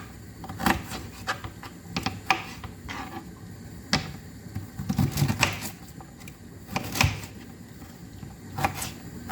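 A knife cutting peeled ginger into small pieces, the blade knocking down at irregular intervals, with a quick run of cuts about five seconds in.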